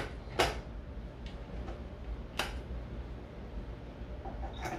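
Kitchen utensil knocking lightly on a container a few times, single sharp clicks about two seconds apart, over a low steady hum.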